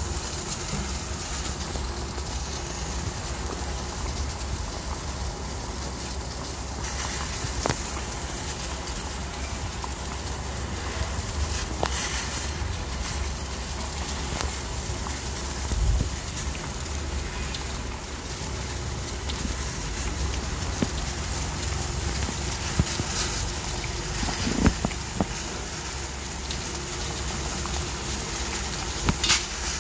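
Stainless steel pot of beef-bone and chicken-feet broth at a hard boil, giving a steady bubbling hiss over a low rumble, with a few short clicks along the way.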